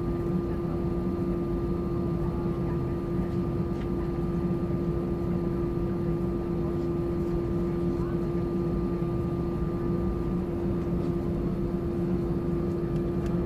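Steady drone of an Airbus A320-200 heard from inside the cabin: a constant engine hum with a steady tone over a low rumble, not rising or falling.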